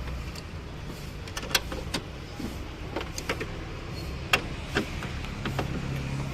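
Scattered, irregular sharp metallic clicks and knocks of hand tools at work in a car's engine bay, over a low steady rumble.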